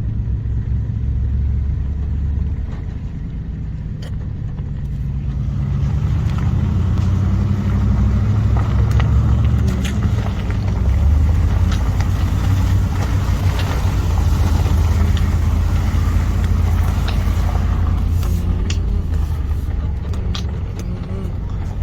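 A motor vehicle being driven, its engine running as a low hum under tyre and rattling road noise. The noise grows louder about five seconds in as it picks up and stays there, with scattered clicks and knocks.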